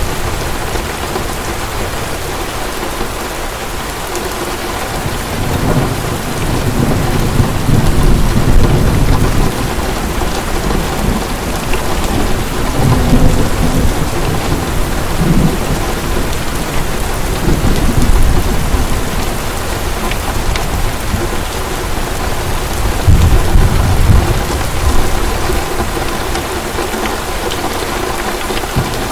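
Heavy rain pouring steadily, with low rolls of thunder rumbling up several times.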